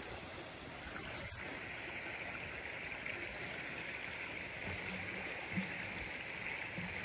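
Steady rushing outdoor ambient noise, with a soft knock about five and a half seconds in.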